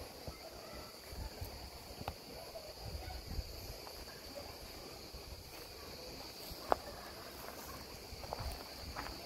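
A steady, high-pitched chorus of insects chirring, with low, uneven thumps of footsteps on the forest path underneath. A single sharp click comes about two-thirds of the way through.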